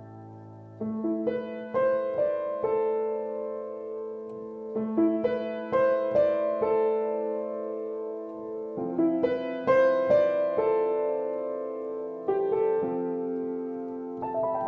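Piano music: groups of notes struck one after another and left to ring, a new phrase beginning about every four seconds.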